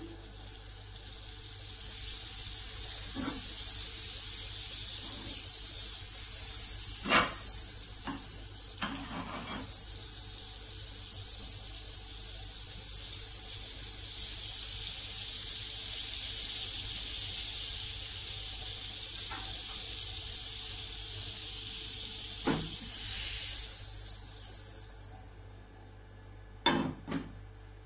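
Margarine melting and sizzling in a nonstick frying pan: a steady high hiss, with a few light taps of a metal spatula against the pan. The sizzle fades away near the end.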